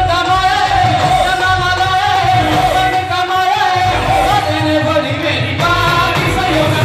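Live Punjabi Sufi devotional song: a singer holding a long melodic line over instrumental accompaniment.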